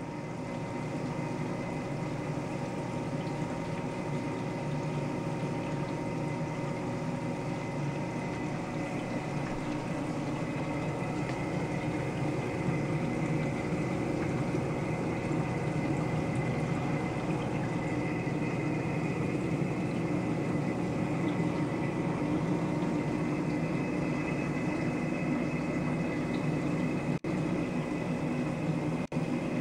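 Steady hum and water noise of a reef aquarium's circulation pumps and flowing water, with a few constant whining tones. It cuts out twice, very briefly, near the end.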